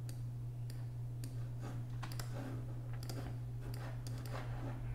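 Faint, irregular clicks of a computer mouse during 3D modelling work, over a steady low hum.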